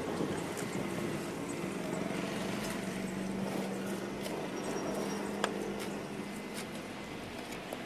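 A shovel digging into a sand heap and tipping sand into a steel pan, with a few light knocks, while measuring sand for a concrete mix. A steady low hum runs underneath through most of it.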